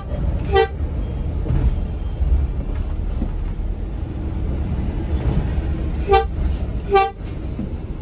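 Bus horn giving short toots: one about half a second in, then two more about six and seven seconds in. Under them runs the steady low rumble of the coach's Mercedes-Benz 1626 NG engine and road noise, heard from inside the cabin.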